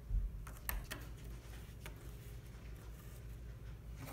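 Handling noise: a few light taps and clicks as small plastic toy figures and a toy car are moved about on carpet, with a low rumble from the handheld phone and a bump just after the start.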